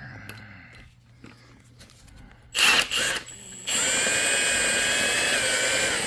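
Impact wrench on its low setting running wheel studs in: two short bursts, then a steady whining run of about two and a half seconds whose pitch drops slightly near the end.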